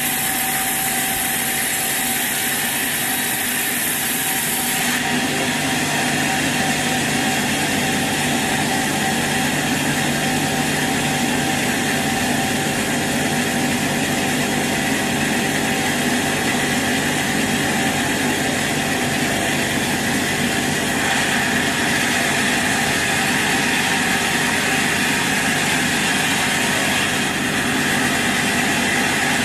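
Sawmill machinery running steadily: a continuous motor hum under a dense hiss. The sound shifts about five seconds in and grows brighter again about twenty-one seconds in.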